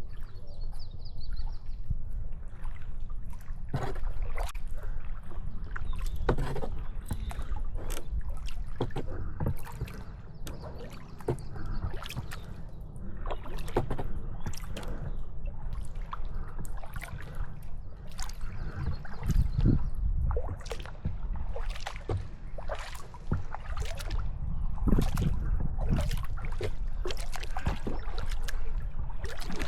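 Kayak paddle strokes: the blades dip and splash in the water about once a second, with water dripping off them, over a steady low rumble.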